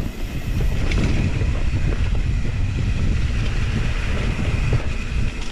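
Wind buffeting the microphone over the steady rumble of a mountain bike rolling down a rough dirt singletrack, with scattered clicks and rattles from the bike over the bumps.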